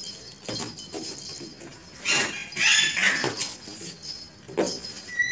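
Young goat kid giving a few short, high-pitched cries about two to three seconds in, among brief sharp sounds.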